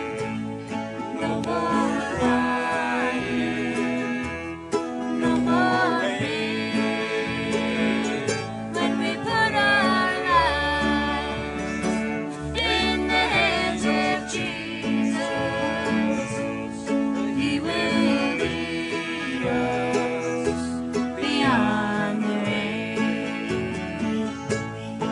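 A woman singing a country-style song live, backed by acoustic guitar and other plucked string instruments such as banjo.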